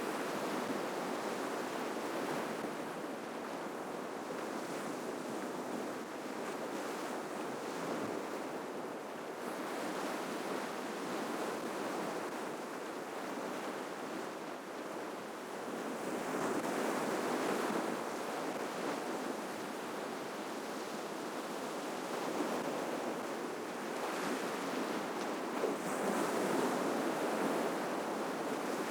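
Ocean surf washing onto the shore: a continuous rush of breaking waves that swells louder twice, about halfway through and again near the end.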